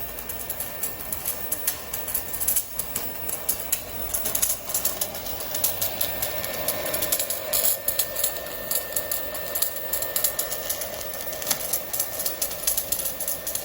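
Handheld stick arc welder running a bead, the electrode arc crackling and sputtering in a dense, irregular stream of sharp pops.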